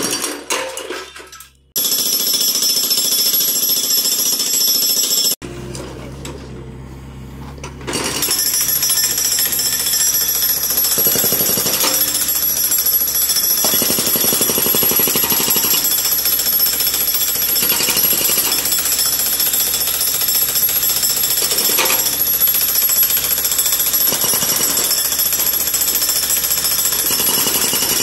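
Hydraulic breaker on a John Deere mini excavator hammering concrete with a rapid, steady pounding. It stops for about three seconds around five seconds in, leaving only the quieter run of the excavator, then starts again and keeps going.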